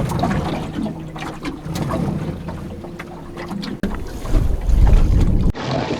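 Boat engine running with a steady low hum, under wind buffeting the microphone. The wind rumble is heaviest about four to five seconds in, then cuts off suddenly.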